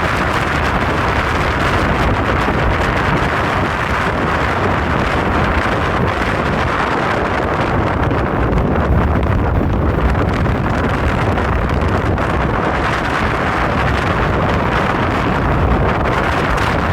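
Strong hurricane wind buffeting the microphone: a loud, steady rushing with an uneven low rumble.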